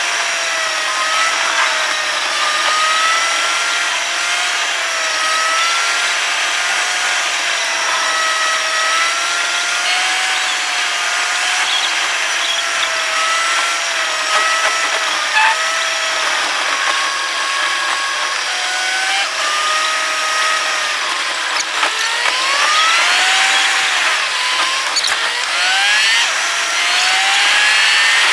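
A car's engine and road noise from inside the cabin, played back many times too fast. The engine becomes a high-pitched whine that wavers slowly up and down with the revs, over a steady hiss. In the last few seconds it rises in several quick sweeps as the car accelerates through the gears.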